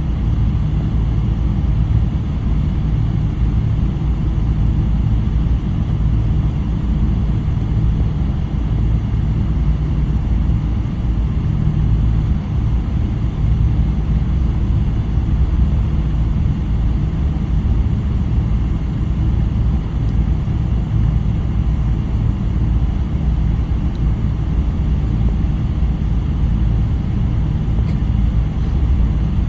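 Boeing 777-300 cabin noise: a steady, loud low rumble from the Rolls-Royce Trent 800 engines and the airflow, with no change in pitch or level.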